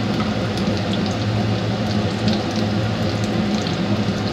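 Eggs frying in hot oil in a nonstick pan: a steady sizzle with small crackles, over a steady low hum.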